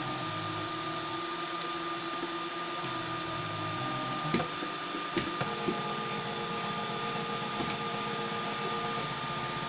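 DIY 3D printer at work: its stepper motors sing in steady tones that jump from pitch to pitch as the print head moves, over a constant high whine. Three sharp clicks come about halfway through.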